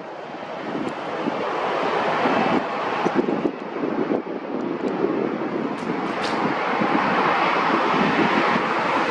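Jet aircraft engine roar that builds over the first two seconds and then holds steady, with some wind buffeting on the microphone.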